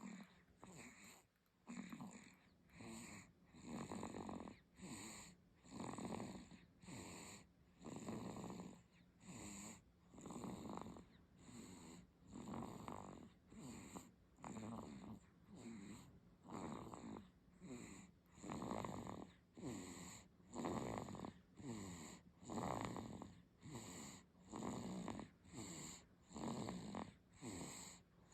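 A 50-day-old baby snoring: a small snore on every breath, at an even pace of about one breath a second.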